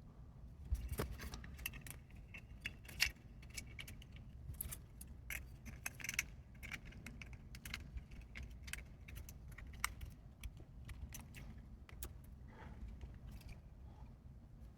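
Faint, irregular small clicks, taps and light rattling of hard plastic and metal parts as the iPod Mini's internals are handled and fitted back into its case.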